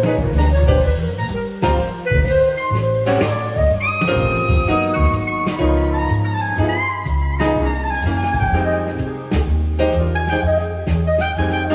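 Jazz music: a wind instrument carries the melody over drum kit and a steady bass line.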